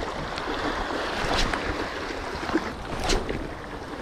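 Small waves lapping and washing over the rocks at the waterline, with a low wind rumble on the microphone and a few sharp clicks, the loudest about three seconds in.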